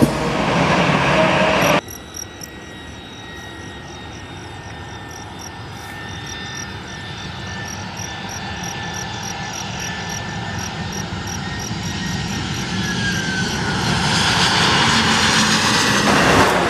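Airbus A320 jet airliner on approach to land, its engine noise growing steadily louder as it nears. The sound cuts in suddenly about two seconds in, after a burst of louder noise.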